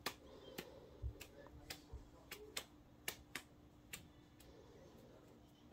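Faint, scattered light clicks and taps from plastic mixing cups and a wooden stir stick being handled while resin is poured into a tri split cup, over a faint steady hum.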